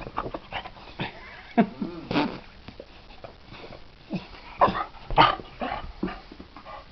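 Dog whimpering and giving short yips, several times, with a wavering whine about two seconds in.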